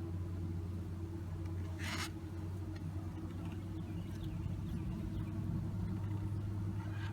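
Honey bees humming steadily around an opened hive, a low even drone. A short rustle or scrape about two seconds in.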